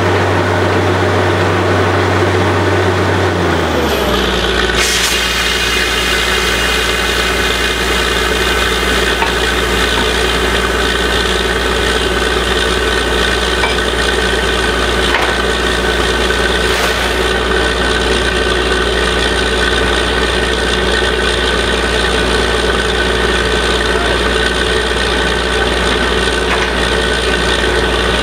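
Truck-mounted borewell drilling rig and its diesel-driven air compressor running steadily during drilling. About four seconds in, the low engine note drops lower and a higher whine and hiss join, then the machinery runs on evenly.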